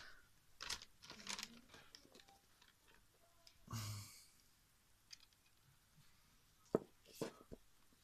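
Faint handling noises: a few scattered small clicks and short rustles, with a longer rustle about halfway through and two sharper clicks near the end.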